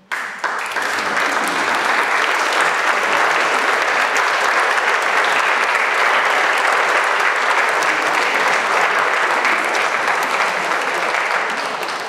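Audience applauding, breaking out suddenly from silence, holding steady and starting to die down near the end.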